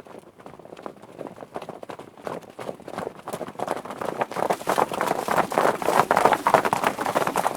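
Horses galloping, a rapid, dense drumming of hoofbeats that grows steadily louder as they approach.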